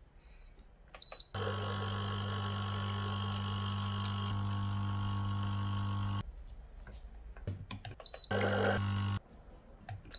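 Hibrew 4in1 capsule coffee machine beeping once, then its pump buzzing steadily for about five seconds as water runs through with no capsule in, a flush to clean a plastic smell out of the machine. A second short beep and a briefer burst of pumping come near the end.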